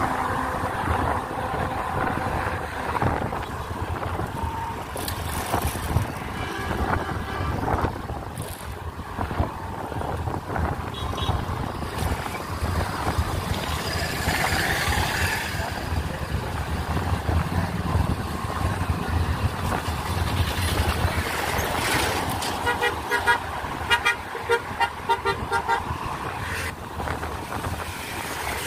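Road traffic rumbling past with vehicle horns honking now and then; about 22 seconds in, a horn sounds a rapid run of short beeps for several seconds.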